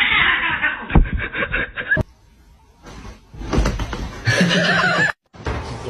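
People laughing in short, choppy bursts, broken off abruptly about two seconds in and again near the end.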